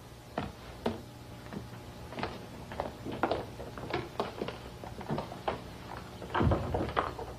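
Light footsteps and knocks on a hard floor, about two a second, with a heavier thump near the end.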